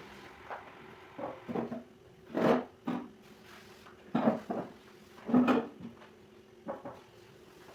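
Irregular knocks and clunks of household objects being handled and set down, about a dozen, the loudest two about two and a half and five and a half seconds in, with a faint steady hum underneath.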